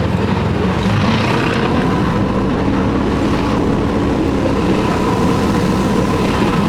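1966 Triumph Spitfire's 1147cc four-cylinder engine running steadily on the move, with road and wind noise and a faint steady whine over it.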